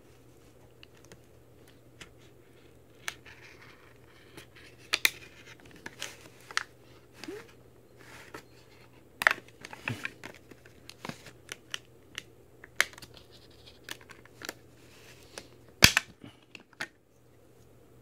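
Hard plastic blister pack being cut and pried open by hand: scattered sharp clicks, cracks and crinkles of the plastic, the loudest crack about 16 seconds in.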